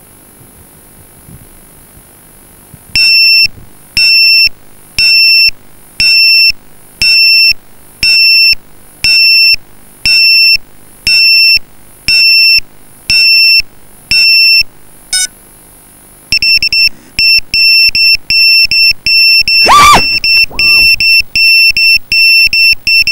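A downed FPV quadcopter's lost-model beeper, sending out a loud, high beep about once a second. Later the beeps come faster and more irregular. About two-thirds of the way through, the motors spin up in one short burst with a sweeping pitch, which turns the quad over where it lies.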